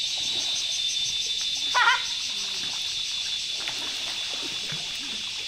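Steady, high-pitched insect chorus with a fast, even pulse. About two seconds in there is one short, high call, and faint voices can be heard under it.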